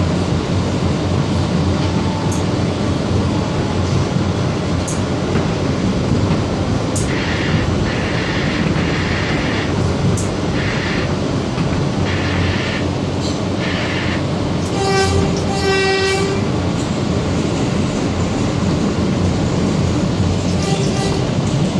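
R160B subway train with Siemens propulsion running at speed on open track, with a steady rumble of wheels on rail. About halfway there is a row of short high-pitched bursts, then two short horn blasts, the warning sounded when passing track workers.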